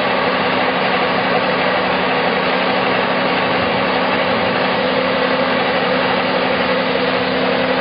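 Construction machinery running steadily: a constant engine-like drone with an even hum of two low tones, unchanging throughout.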